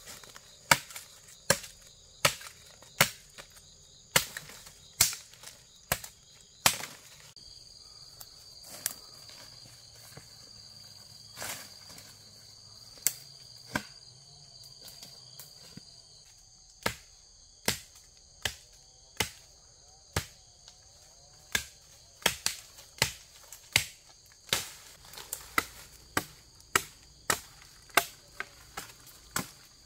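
Sharp knocks and cracks of dry wood being broken up for firewood, coming in runs of about one or two a second with a lull in the middle. Insects shrill steadily in the background.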